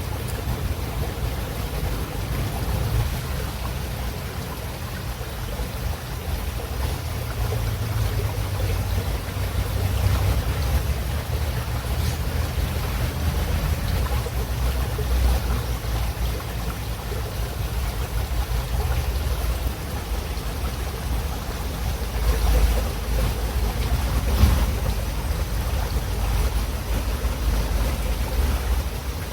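A calm river's water running: a steady rushing noise with a strong low rumble underneath, swelling slightly a little past two-thirds of the way through.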